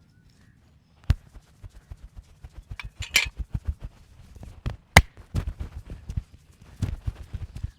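Percussive massage strikes on a person's body: a fast run of light taps, several a second, starting about a second in, with a few sharper, louder hits among them.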